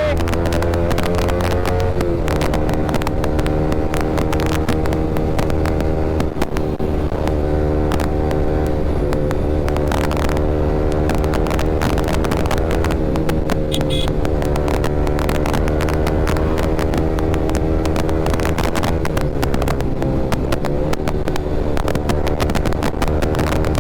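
Yamaha R15 V3's 155 cc single-cylinder engine running loud through an aftermarket Akrapovic R9 exhaust while riding at a steady speed. The engine note dips briefly about two seconds in and again near the end.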